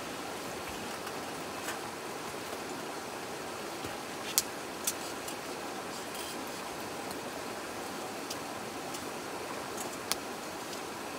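Wood fire crackling in a metal fire pit, with a few sharp pops, the loudest about four seconds in, over the steady rush of a flowing stream.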